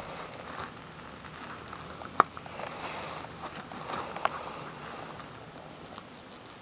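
Rustling and crackling of thick pummelo peel being pulled and handled by a rubber-gloved hand, with a sharp click about two seconds in and another near four seconds.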